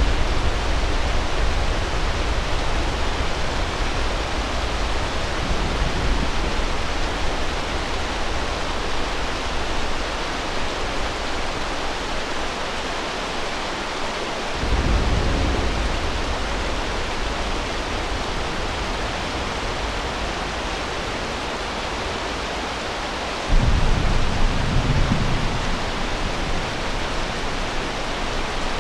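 Thunderstorm: steady heavy rain hiss with low rolls of thunder, one fading at the start, another swelling about halfway through, and a sudden one about five seconds before the end.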